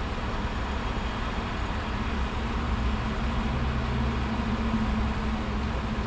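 A motor vehicle's engine idling with a steady low rumble; its hum grows stronger about halfway through.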